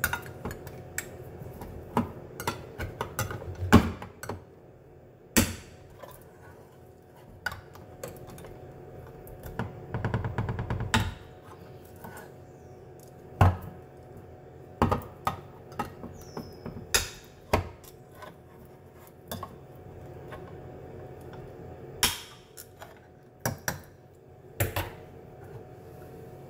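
Metal food cans and a hand can opener being handled: scattered knocks and clinks, with a short run of rapid clicks about ten seconds in.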